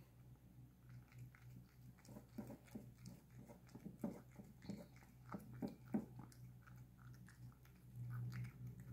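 A cat eating porridge from a bowl: faint, irregular wet smacking and chewing, busiest in the middle of the stretch.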